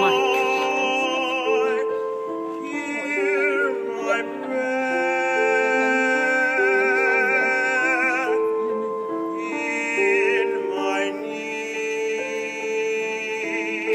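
Slow ballad music: piano accompaniment under a melody held in long notes with vibrato.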